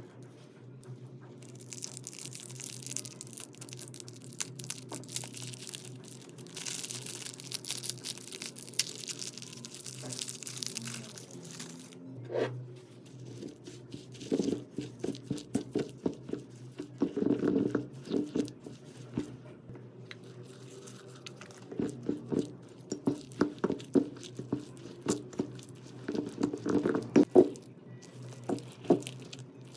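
Hands working slime: a crinkly, crackling hiss for roughly the first ten seconds, then bursts of sticky clicking and popping as the slime is squeezed and poked.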